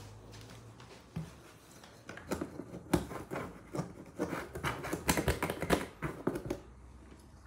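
Fingers scratching and tapping on the side of a cardboard box: a rapid run of dry scrapes and taps lasting about four seconds, after a single knock about a second in.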